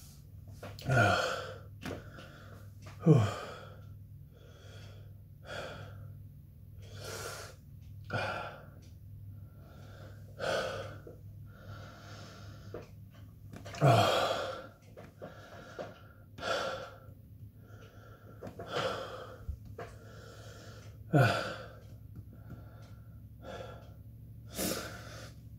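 A man's laboured, pained breathing from the burn of extreme hot sauce: repeated sharp gasping breaths every second or two, four of them with a short falling groan.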